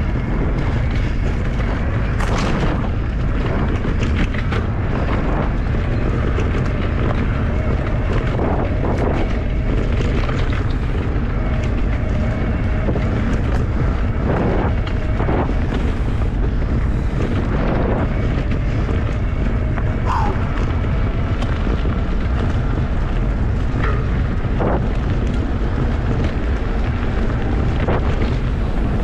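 Wind buffeting the microphone of a handlebar camera on a bicycle riding a dirt forest trail at speed, a steady heavy rumble. Short knocks and clicks from the bike rattling over bumps in the trail are scattered through it.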